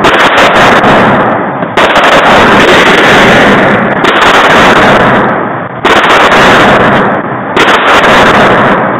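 Rapid gunfire echoing in an indoor shooting range, the shots running together into a dense, loud clatter. Fresh strings of fire start about every two seconds.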